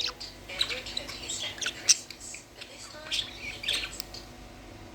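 Pet budgerigars chirping and squawking in quick, short calls, scattered irregularly.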